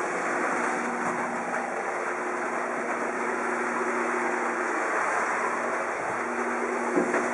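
Hino Dutro truck's 4-litre engine idling steadily with an even hum, with a couple of light knocks near the end.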